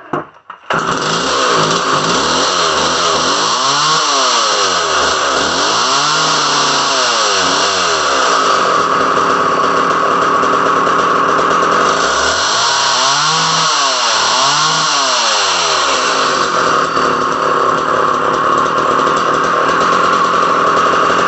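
Vintage McCulloch MAC 1010 chainsaw's two-stroke engine starting up suddenly and then running steadily, running pretty good. Its sound wavers up and down twice, a few seconds in and again past the middle.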